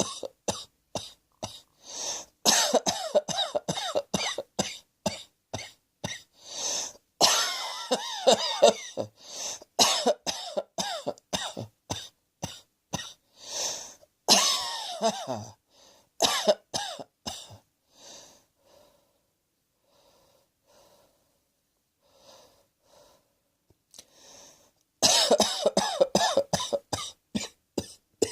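A person coughing over and over in long fits of sharp, rapid coughs. There is a quieter lull with only faint sounds, then another fit starts about three seconds before the end.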